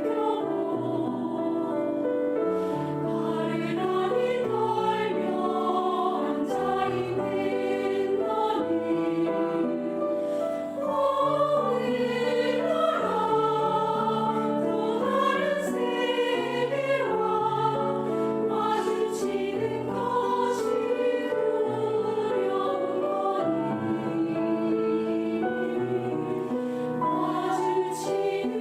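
Mixed choir of sopranos, altos, tenors and basses singing a choral song in long, held notes.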